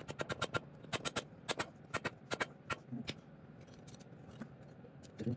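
A small mallet tapping the cylinder barrel of a Chinese 110cc engine to seat it on its studs: a quick series of sharp taps, often in pairs, over the first three seconds.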